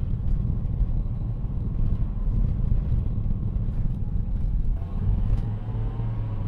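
Steady low rumble of road and engine noise inside the cabin of a Honda Odyssey minivan driving along.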